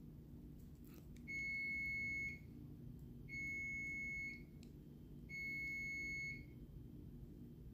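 An electronic beeper sounds three times: a steady high beep about a second long, repeating every two seconds, over a low steady hum.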